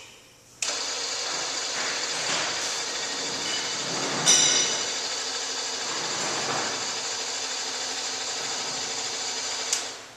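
Electric drive motor and mechanism of a motorized window running as it lowers the large window sash: a steady mechanical whir that starts abruptly about half a second in and stops just before the end, with a sharp clack about four seconds in.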